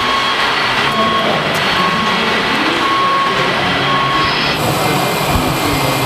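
Whining electric drive motors and gearboxes of radio-controlled model trucks over a dense, steady mechanical noise. About four and a half seconds in, a higher-pitched steady whine joins, like the hydraulic pump of an RC model excavator.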